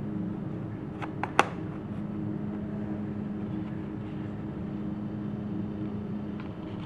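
A steady low hum with background noise. About a second in, three small clicks, the last a sharp tick, as a small BGA chip module is flipped over and set down on a hard tabletop.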